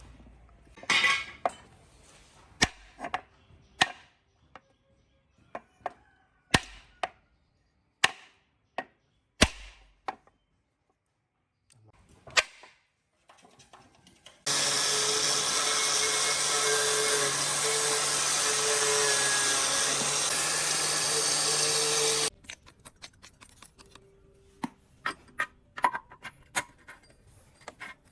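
Metal parts clinking and knocking as they are handled, then a power tool running steadily for about eight seconds, starting and stopping abruptly, followed by more light clinks.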